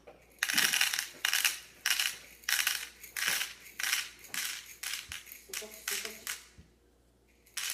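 Unpopped popcorn kernels shaken and poured into a bowl in about ten short rattling bursts, roughly two a second, stopping about six and a half seconds in.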